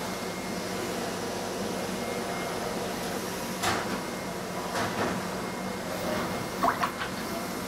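Steady background hum with a few short, soft scratches and dabs of a watercolour brush working paint onto paper, around the middle and near the end.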